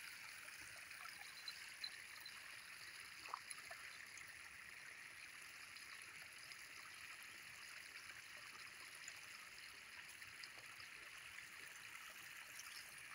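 Near silence: a faint, steady outdoor hiss over the paddy fields, with no distinct events apart from a couple of faint ticks.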